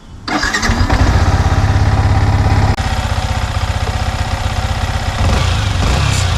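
Yamaha MT15's single-cylinder engine comes in abruptly about a third of a second in and idles with an even pulse. It runs free of cam chain rattle now that a new cam chain tensioner is fitted: the irritating engine noise is completely gone.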